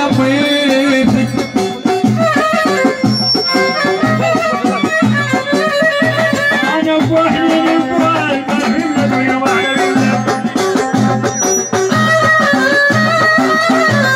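Moroccan aita zaariya folk music played live: a violin held upright carries the melody over a steady hand-drum beat.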